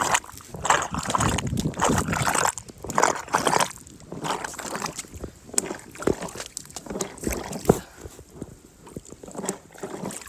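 A shovel working in wet mud and water in a hole, with irregular sloshing and scraping, heaviest in the first few seconds and softer after, with a few sharp knocks.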